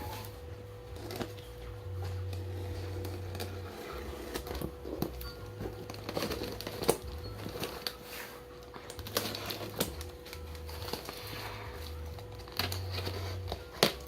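Hands unwrapping a parcel: crinkling of packaging with scattered clicks and taps throughout, over a steady faint hum.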